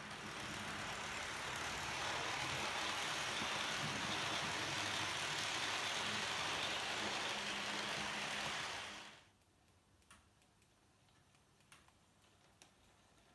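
H0 scale model train running along the track, a steady rolling rumble and hiss of wheels on rail that builds over the first two seconds and cuts off suddenly about nine seconds in. After that only a faint background with a few small clicks remains.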